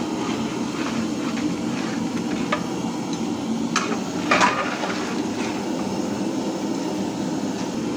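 Steady rushing of a gas burner under a large cooking pot, with a few sharp metal knocks about halfway through, the loudest about four and a half seconds in, from the metal ladle against the pot.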